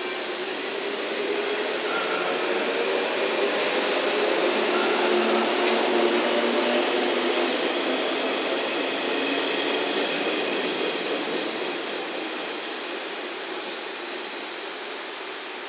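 JR West 115-series four-car electric train running past along the platform, with steady wheel and running noise that is loudest about six seconds in and then fades as the last car pulls away.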